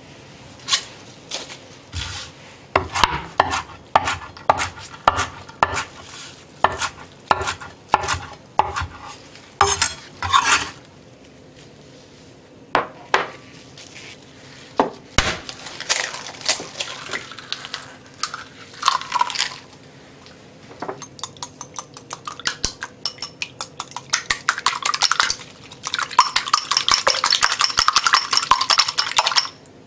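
A knife chopping on a wooden cutting board in uneven strokes for the first ten seconds or so. Then eggs are cracked into a glass bowl and beaten with a wire whisk, which clatters rapidly against the glass, loudest over the last few seconds.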